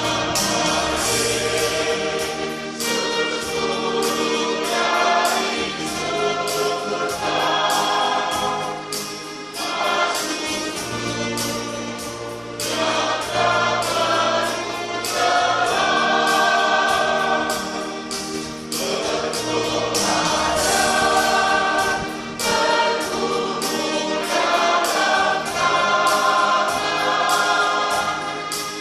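Mixed church choir singing a hymn in several parts, phrase by phrase, with instrumental accompaniment.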